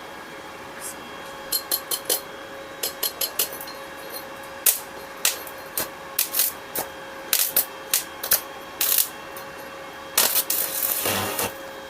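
Stick (arc) welding with a transformer welding machine: the electrode strikes and sputters on the metal in short, irregular crackling bursts, with a longer stretch of arc near the end. Under it runs a steady electrical hum from the welder.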